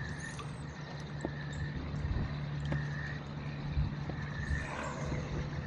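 A motor running steadily, a low even hum, with a few faint ticks over it.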